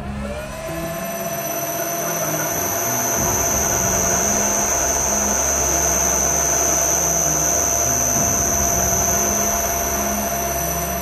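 Metal lathe starting up: the spindle and drive spin up with a whine that rises in pitch over the first half second, then run steadily at speed with a steady high whine.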